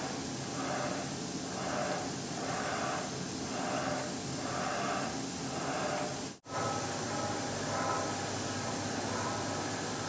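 Old Mitutoyo Microcord coordinate measuring machine being jogged from its joystick console: a steady hiss with a mechanical whir that swells and fades about once a second. The sound cuts out for an instant about six seconds in, then goes on more faintly.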